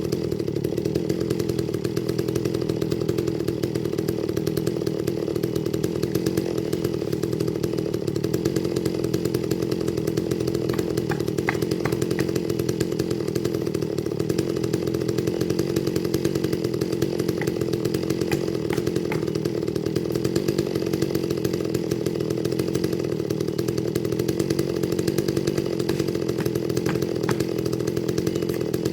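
Chainsaw engine running at a steady, constant speed with no let-up or change in revs, with a few faint ticks now and then.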